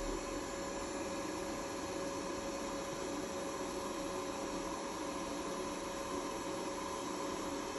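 Robot vacuum cleaner running on carpet: a steady whirring hiss with a constant hum that doesn't change.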